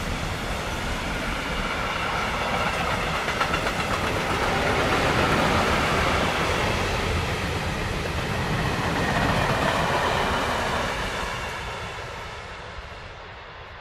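Freight train wagons (tank wagons, sliding-wall and tarpaulin wagons) rolling past, wheels running on the rails in a steady loud rumble. The sound fades over the last few seconds as the end of the train goes by.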